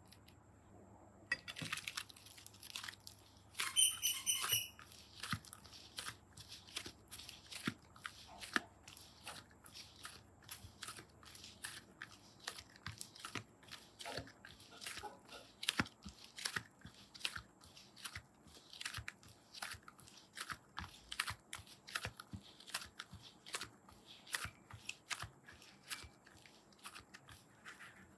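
Slime being squished and worked by hand: a steady run of small sticky clicks and crackling pops, a few each second. A brief high squeak stands out about four seconds in.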